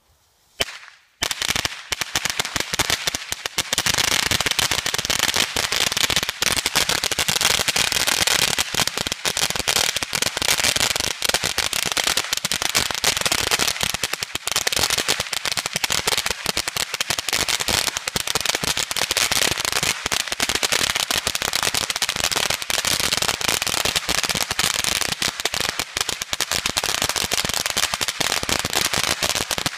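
A long string of firecrackers going off: one sharp pop, then about a second in a rapid, unbroken rattle of bangs that keeps going without a pause.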